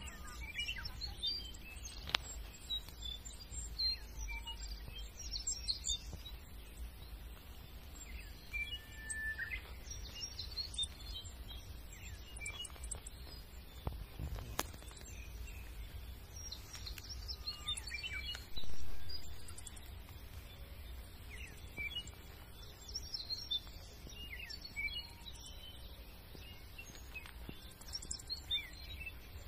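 Small birds chirping and calling on and off over a steady low outdoor rumble, with a few sharp clicks. A brief louder low sound swells and fades about two-thirds of the way through.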